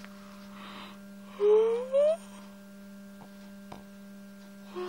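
A steady low hum coming through the bedroom wall: the unexplained noise that woke her. About a second and a half in, a person hums twice, briefly, each time rising in pitch.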